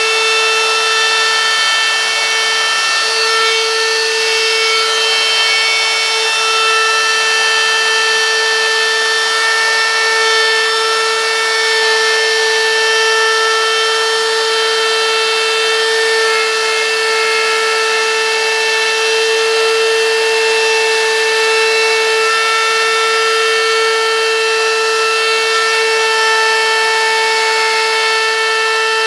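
Handheld wood router running steadily with a pointed carving bit, cutting a deep groove around the outline of a wooden sign: a constant motor whine over the sound of the bit chewing through the wood.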